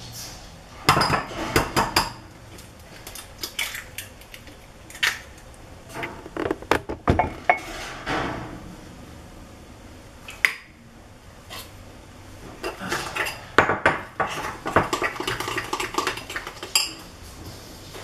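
Metal spoon clinking and scraping against a ceramic bowl as egg is beaten into pancake batter, in several bouts of quick clicks with short pauses between them, and an egg being cracked.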